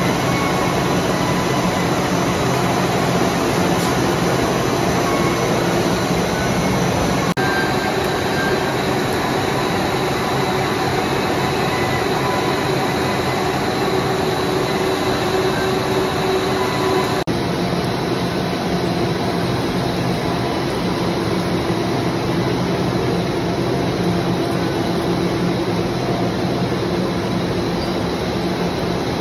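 Fried-snack extruders and cutting machines on a production line running together: a dense, steady mechanical din with a constant motor hum, its character shifting slightly twice.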